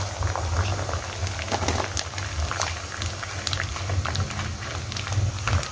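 Water boiling in a pan around freshly added papaya flowers, bubbling with scattered crackles and pops over a low steady rumble, while a wooden spatula stirs them under.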